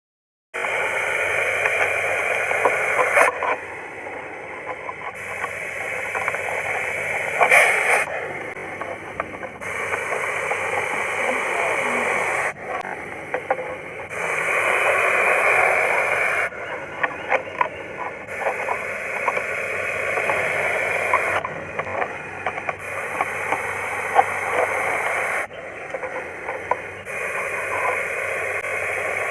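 Russell's viper hissing: a loud hiss lasting two to three seconds, repeated about seven times, with quieter hissing in between.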